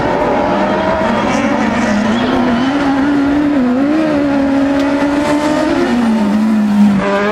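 Buggy 1600 class autocross buggies racing on a dirt track, their engine note wavering up and down in pitch as they accelerate and lift.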